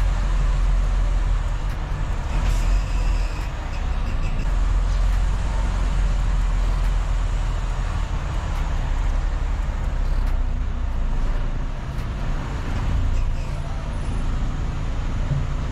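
Semi truck's diesel engine running with a steady low rumble while the truck is driven into its parking spot.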